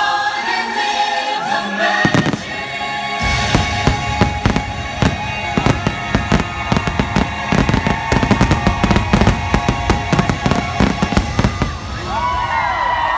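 Rapid barrage of fireworks shells and comets going off, many sharp bangs and crackles a second, over orchestral show music; this is the show's closing volley. The bangs start about three seconds in and thin out near the end as the crowd starts cheering and whooping.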